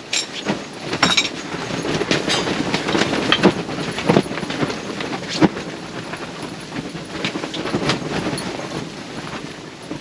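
Tent fabric flapping and rattling in gusty storm wind, with a rumble and irregular snaps and knocks; the sharpest knocks come about a second in and again between about three and five and a half seconds in.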